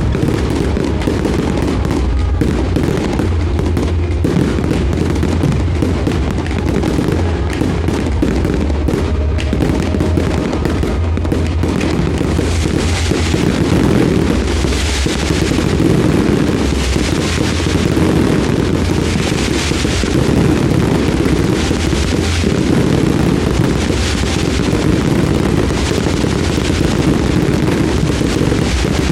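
Fireworks show going off in a loud, continuous barrage of dense cracks and bangs. In the second half, bright crackling surges come every second or two.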